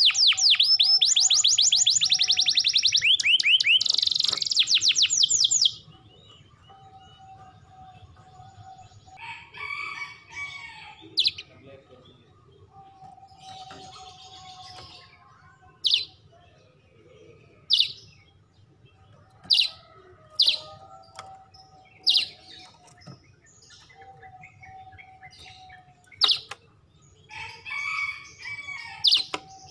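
Domestic canary singing in loud, rapid trills for about the first six seconds. After that it falls quieter and gives short, sharp single chirps every second or two.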